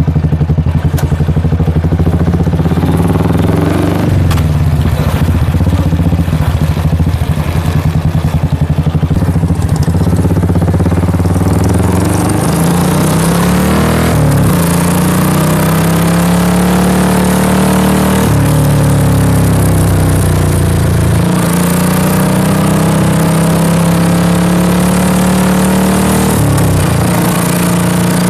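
Royal Enfield Classic 350's single-cylinder engine running through an aftermarket King Cobra silencer, a loud, deep exhaust note while the bike is ridden, its pitch shifting several times as it changes speed.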